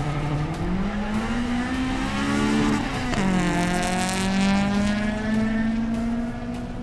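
Two cars, one of them a turbocharged BMW 335i, accelerating hard from a standing drag-race start with engine pitch climbing. About three seconds in the pitch drops sharply as they sweep past, then the engines run on as they pull away.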